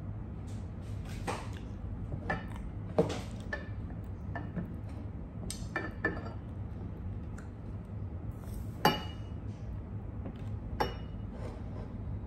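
Ceramic plate clinking and knocking at irregular intervals as a banana is pushed and bitten on it with the mouth, the two loudest knocks about three seconds and about nine seconds in, over a low steady hum.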